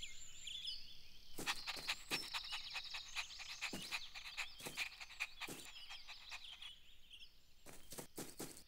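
Faint outdoor cartoon ambience of bird chirps, with a run of short clicking or tapping sound effects at irregular spacing that starts about a second and a half in and thins out after about six seconds.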